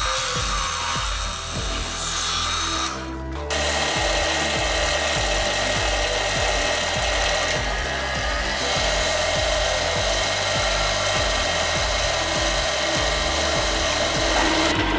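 A power tool running steadily with a high whine, over background music; the tool noise cuts briefly about three seconds in, then carries on.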